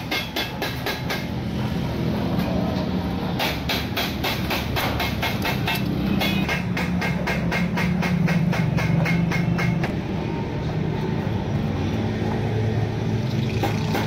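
Hand tin snips cutting thin steel sheet in quick runs of short metallic snipping clicks, about five a second, which stop and start. A steady low engine-like drone runs underneath.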